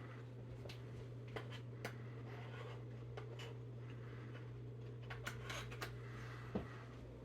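Ceiling fan running: a steady low motor hum with a faint airy hiss and a few scattered light clicks.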